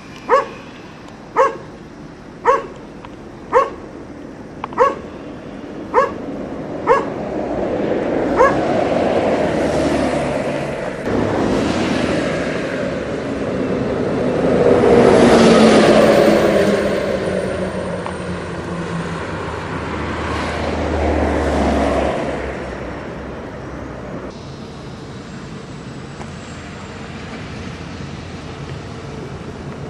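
A dog barking about once a second, about eight barks, stopping about eight seconds in. Then traffic passing on a road, rising and falling in several swells, the loudest about fifteen seconds in.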